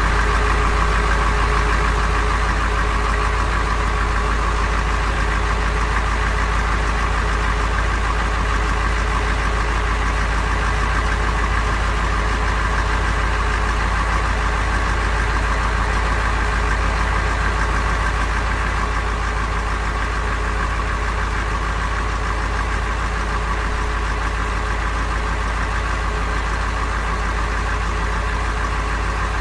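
A steady truck engine idling sound, unchanging throughout, dubbed in as the engine of a toy truck.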